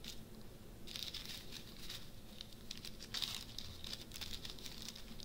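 Small plastic zip-lock bags of diamond painting drills crinkling and rustling as they are handled, with a few light clicks. The rustling comes in two spells, about a second in and again around three seconds in.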